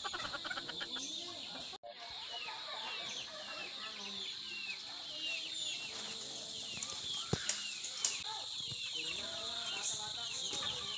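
Outdoor tree-cover ambience: a steady high-pitched insect drone with many short bird chirps over it, and a few light clicks later on.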